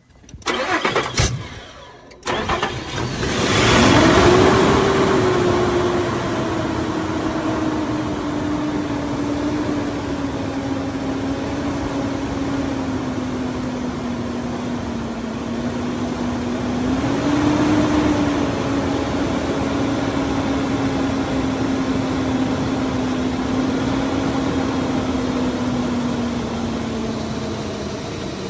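Nissan engine with about 200,000 miles cranked by the starter for about two seconds, catching and flaring up in revs, then settling to a steady idle. It idles with a vacuum leak at the brake booster, with a brief rise in idle speed partway through and a slight dip near the end.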